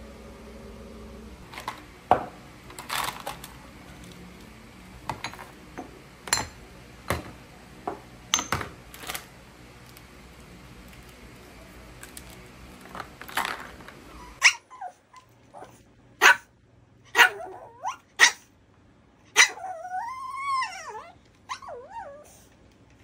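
Scattered clicks and knocks for the first half. Then, about fourteen seconds in, a Shih Tzu barks sharply about six times and ends with a drawn-out wavering whine.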